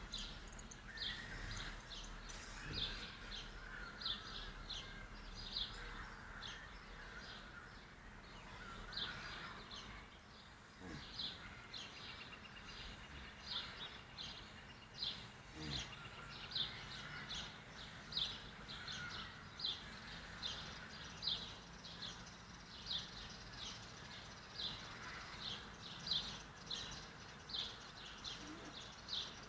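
Short high-pitched animal chirps repeating steadily at about two a second, over a faint background hiss.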